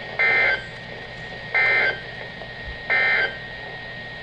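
Three short bursts of Emergency Alert System SAME data tone, the end-of-message code that closes a NOAA Weather Radio warning. Each burst is a buzzing warble about a third of a second long, and they come evenly about 1.3 seconds apart over a steady radio hiss.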